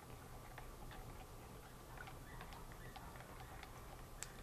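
Faint, irregular clicks and taps of a stir stick knocking against the sides and bottom of a plastic paint pail while stirring thinned gesso.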